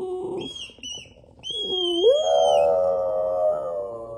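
Boston terrier giving a few short whines, then from about a second and a half in one long howl that rises in pitch and holds steady.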